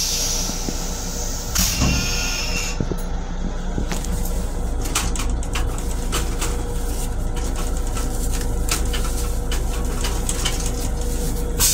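LIRR M7 railcar toilet after a flush: a short spray of rinse water into the stainless steel bowl, then a second hissing spray with a faint whistle about two seconds in. After that, water settles at the drain amid irregular clicks and rattles, all over a steady low hum.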